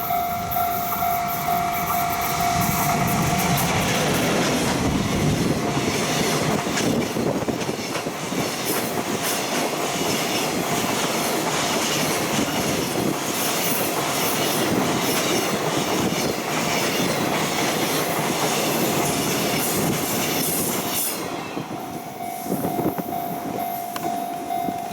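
A Japanese level-crossing alarm rings steadily. About four seconds in, a JR Freight container train hauled by an EF65 electric locomotive passes with a rapid, rhythmic clatter of wheels over rail joints that drowns out the alarm. About 21 seconds in the train is gone and the alarm is clear again.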